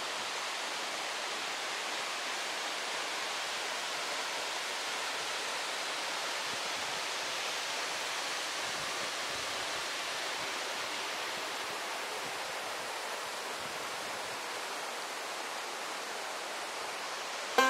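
Steady, even rush of a small waterfall pouring into a rocky pool.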